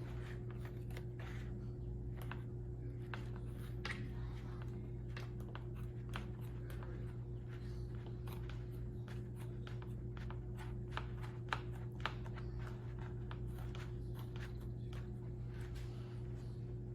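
Scissors cutting through plastic shelf liner: a long run of small, irregular snips and crinkles, over a steady low hum.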